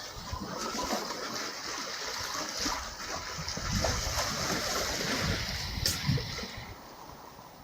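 Black Sea water washing and splashing against the shore, a rushing hiss that swells and then drains away near the end, with a sharp click about six seconds in.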